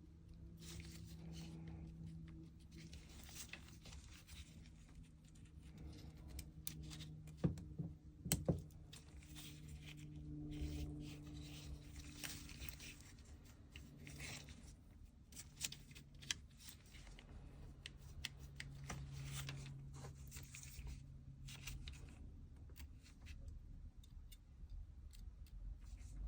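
Faint handling and scraping noises of small parts being worked by hand, with two sharp clicks about seven and a half and eight and a half seconds in, and a few lighter clicks later.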